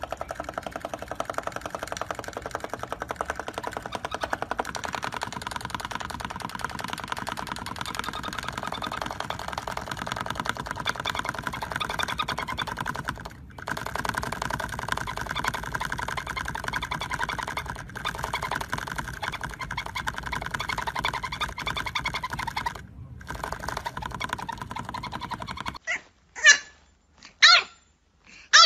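Sun conure making a rapid, steady pulsing chatter, broken by a few brief gaps. Near the end a French bulldog puppy gives about three sharp barks.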